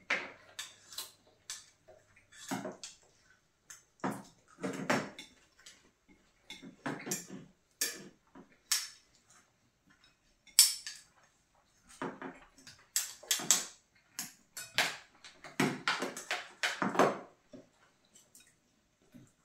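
Chopsticks and spoons clinking and scraping against glass bowls at a table during a meal, in scattered, irregular knocks.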